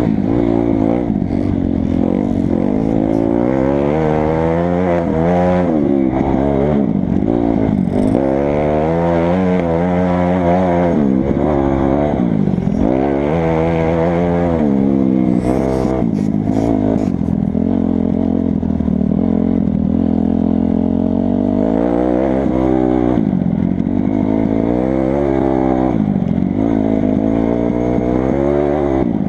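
2008 Kawasaki 250 dirt bike engine under race throttle, its pitch climbing and dropping again and again as the rider accelerates, shifts and backs off, with some clatter from the bike.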